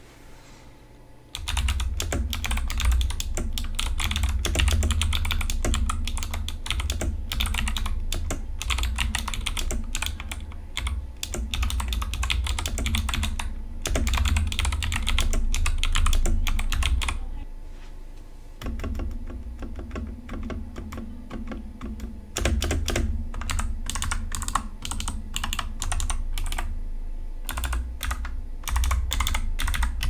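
Typing on an MZ60 60% mechanical keyboard fitted with clicky Kailh Box Jade switches: a fast, dense stream of sharp key clicks. It starts about a second and a half in and has a brief lull a little past the middle.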